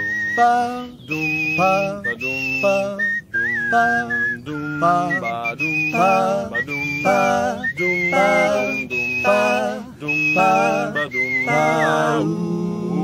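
Male a cappella vocal quartet: one voice whistles the melody in short high phrases with a slight waver, over the other voices singing wordless chords in a steady rhythm.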